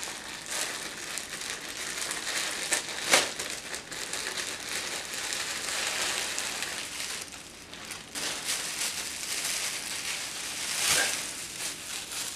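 Plastic packaging crinkling and rustling as it is handled and opened to get a polo shirt out, with louder crackles about three seconds in and again near the end.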